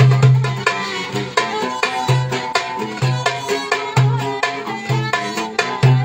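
Live Turkish folk instrumental: a metal darbuka (goblet drum) keeps the rhythm with deep strokes about once a second, under a violin and a plucked round-bodied stringed instrument carrying the melody.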